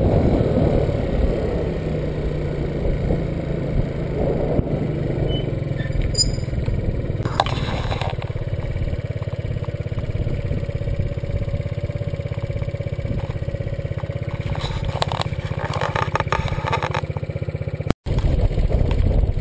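Motor scooter running at a steady cruising speed, its engine a continuous low drone mixed with wind rumble on the microphone. The sound drops out for an instant near the end.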